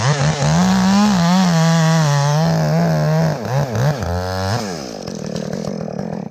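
Two-stroke chainsaw running and being revved up and down several times, then settling to a lower, steadier note near the end before it drops away.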